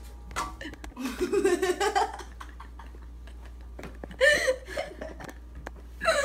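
Children laughing and giggling without clear words, in two short bursts, with a few light clicks in between.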